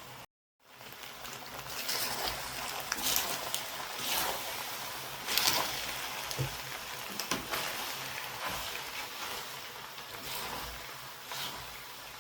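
Kitchen cooking sounds: a steady hiss with scrapes and knocks every second or so, after a brief dropout near the start.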